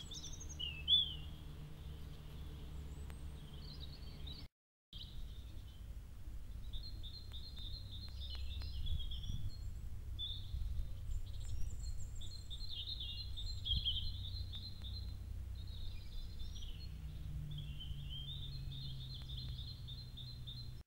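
Wild songbirds singing: many short chirps and trills, over a steady low hum. The sound drops out briefly about four and a half seconds in.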